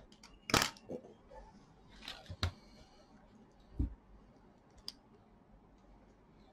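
Laptop's plastic case clicking and knocking as it is pried at its snap clips and handled. There is a sharp click under a second in, a quick cluster of clicks about two seconds in, a dull knock near four seconds and one small click about five seconds in.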